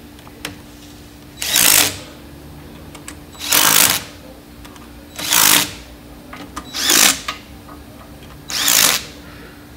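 Handheld power driver run in five short bursts, tightening the bolts on a blower's gearbox shaft coupler.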